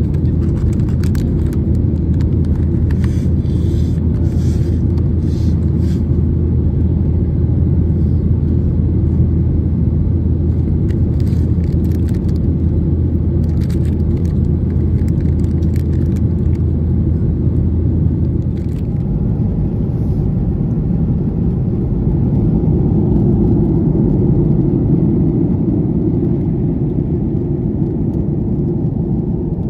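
Loud, steady cabin rumble of a Boeing 737-800 in flight, engine and airflow noise, with faint crinkling of plastic snack packs and a cardboard snack box being handled in the first half. The deepest hum in the rumble drops away about two-thirds of the way through.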